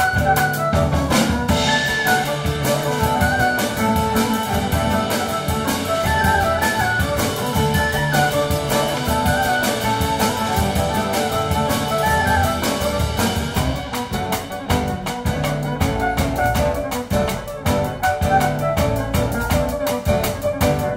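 Live band playing an instrumental tune, with fiddle, acoustic guitar, keyboard and drum kit carrying a stepping melody over a steady beat.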